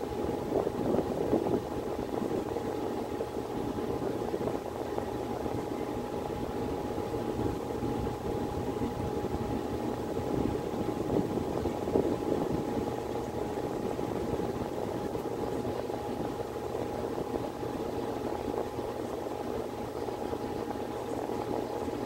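Miller E2 series electric furnace running in heating mode: its blower moves air with a steady rush, under a constant hum.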